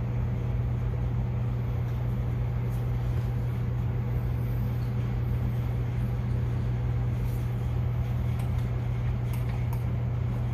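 A steady low machine hum, unchanging throughout, with a few faint light clicks from small engine parts being handled at the cylinder head.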